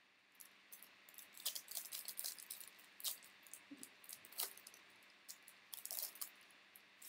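Topps Series 1 baseball trading cards and their packs being handled: an irregular run of crisp crinkling, rustling and light clicks, busiest from about a second in until past six seconds.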